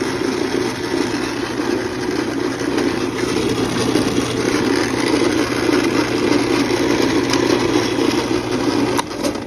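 Garage door opener motor running steadily, a low hum with a loud rattling drive noise as it moves the door, then cutting off about nine seconds in. The opener's limit switches have just been repaired.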